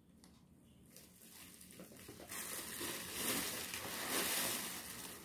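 Plastic wrapping and bubble wrap crinkling and rustling as a wrapped item is pulled out of a cardboard box, starting about two seconds in after a near-silent start.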